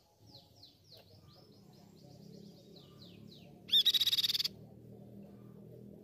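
Crescent-chested babbler singing: a run of quick, downward-slurred whistled notes, then about two-thirds of the way in a loud, rapid trill lasting under a second.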